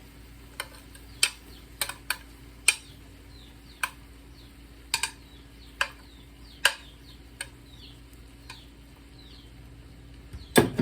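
A metal cooking utensil knocking against a pan while the chicken and vegetables for pancit are stirred: about a dozen sharp clicks at irregular intervals over a faint sizzle, with a louder clatter at the very end.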